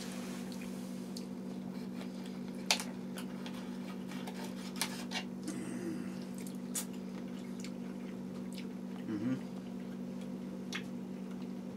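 Forks clicking and scraping on dinner plates, a scatter of sharp clinks with the loudest about three seconds in, over a steady low hum.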